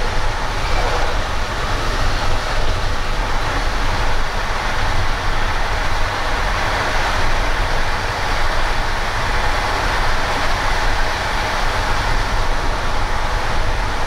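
Running noise of a passenger coach travelling fast, heard from inside the compartment: a steady rumble of wheels on the rails under a broad rushing noise.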